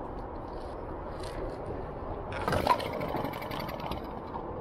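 British Seagull two-stroke outboard given one pull on its wrap-around starter cord about two and a half seconds in: a short, sharp whirr as the cord rips off the flywheel and the engine turns over without catching. Under it a steady wash of water-like hiss.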